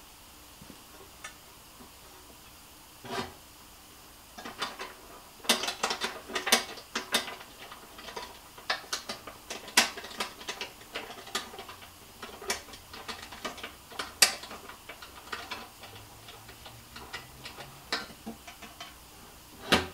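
Irregular sharp clicks and clacks, several a second, from the parts of a racket stringing machine's base and pedestal being handled and fastened during assembly, starting about four seconds in.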